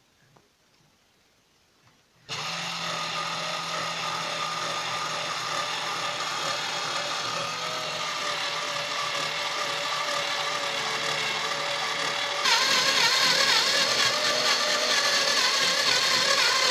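Cordless drill-driver, its 18 V motor fed from a single external 6 V battery, running with a steady whine while drilling a pilot hole into the sofa frame; it is too slow on this supply. About ten seconds in the sound gets louder and harsher as the bit works into the material.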